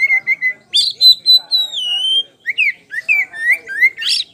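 Oriental magpie-robin (the white-bellied kacer poci form) singing loudly in a varied run of clear whistles: a held note, a long note sliding downward, then a string of short rising notes.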